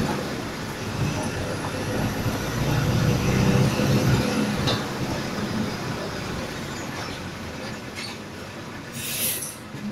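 City bus driving along a street, heard from the driver's seat: engine running with cabin rattle and road noise, pulling harder a few seconds in and then easing off. A short hiss near the end.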